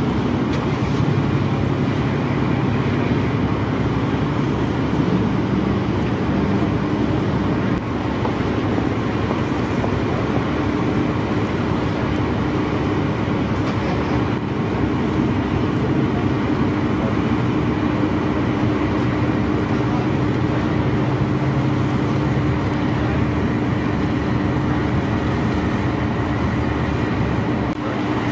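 Engine running steadily: a constant low drone with a steady hum that holds throughout.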